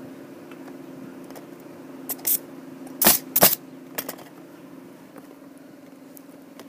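Plastic roofing tiles clicking and knocking as they are handled and set in place, with two loud sharp knocks about three seconds in, over a steady low hum.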